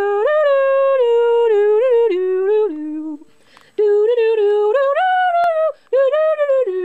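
A single high voice humming a slow melody in held, stepping notes, in phrases with a short break about three seconds in.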